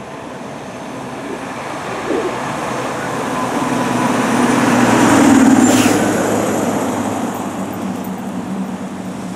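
Fire engine driving past at moderate speed, with lights but no siren. Its diesel engine and tyres grow louder as it approaches, peak about halfway through, then fade as it pulls away.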